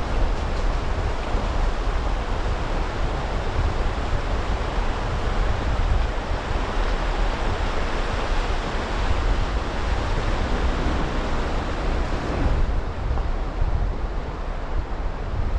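Subaru Crosstrek driving through a shallow river: tyres churning the water with a steady rushing splash over a low rumble. About twelve seconds in, the hiss thins as the car rolls out onto dry gravel.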